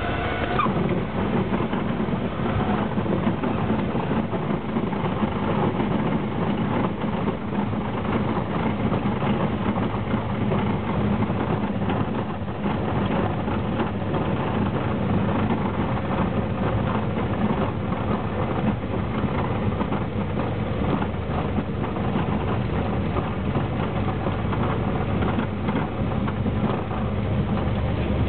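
Cessna 172's piston engine and propeller droning steadily inside the cockpit, mixed with airflow noise, during landing and the rollout down the runway.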